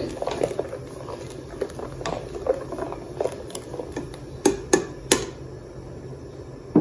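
A black ladle stirring thick coconut-masala curry in a steel pot as it comes to the boil: soft scrapes and squelches, with three sharp taps against the pot a little past halfway.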